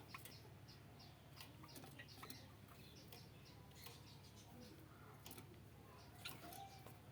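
Small kept birds chirping faintly: many short, high chirps scattered irregularly, with a few sharp clicks and a low steady hum underneath.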